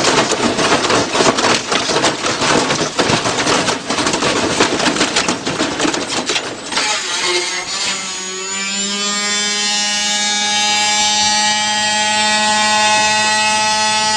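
Washing machine banging and rattling hard, with a dense run of knocks. About seven seconds in, the clatter gives way to a steady buzzing hum that climbs a little in pitch and then holds.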